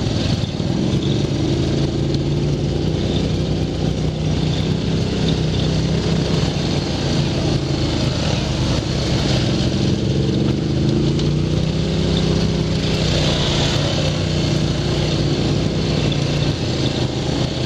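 ATV engine running steadily under way on a dirt trail, with a constant engine note and wind and trail rumble on the goggle-camera microphone. The engine's pitch shifts briefly about eleven seconds in.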